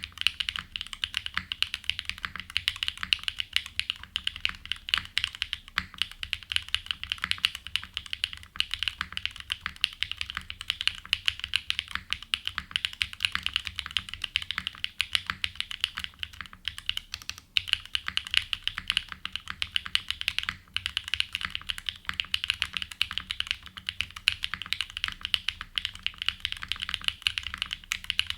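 Steady fast typing on a Geonworks F1-8X custom mechanical keyboard with an aluminium plate, frankenswitches (Pure Berry housing with a Cherry top, 65 g springs) and GMK keycaps: a continuous stream of key strikes, broken by two brief pauses a little past the middle.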